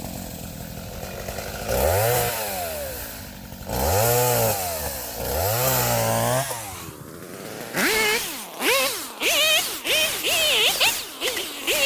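Chainsaw engine running low at first. About two seconds in it revs up and back down three times, each rev lasting about a second and a half. Near the end come a string of quick, short throttle blips, about two a second.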